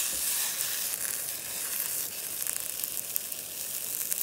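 Hot dogs sizzling in a frying pan over a camp stove: a steady hiss with scattered small crackles.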